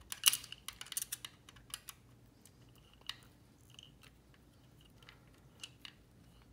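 Small clicks and ticks of a T-handle hex wrench snugging down the ignition timing rotor screw in a motorcycle engine's cam chest cone: a quick run of clicks in the first two seconds, then a few scattered ones.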